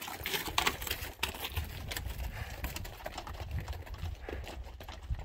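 Hikers' boots and trekking poles clicking and scuffing on a rocky trail: irregular sharp taps, several a second, with a low rumble beneath.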